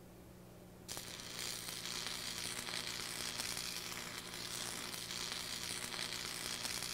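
Stick welding with a Lincoln 225 AC welder: the arc is struck about a second in and runs on with a steady crackling sizzle, over a steady low hum.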